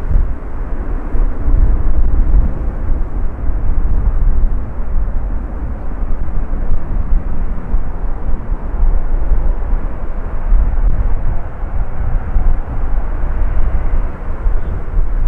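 Twin-engine widebody jet airliner climbing away after takeoff, its engines a steady, loud rumble. Strong gusting wind buffets the microphone over it.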